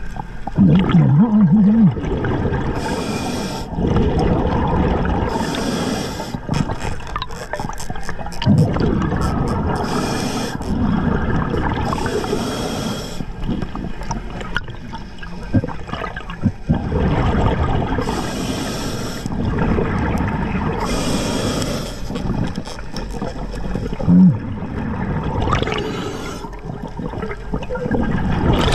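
Scuba diver breathing underwater through an Atomic regulator. Each inhale through the second stage gives a short hiss, roughly every three to four seconds, and exhaled bubbles burble between the breaths. Two brief low warbling tones come near the start and about four seconds before the end.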